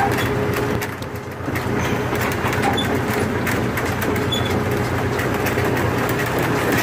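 Tractor engine running steadily while the wooden hay-ride wagon it pulls rattles, with many small clicks and knocks over the engine's constant low hum.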